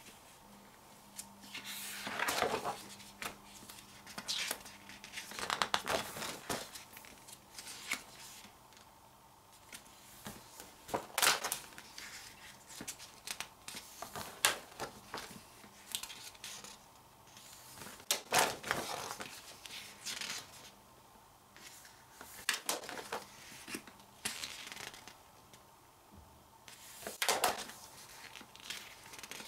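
Pages of a large photobook being turned one after another, each turn a short papery swish or crinkle, roughly every three to five seconds.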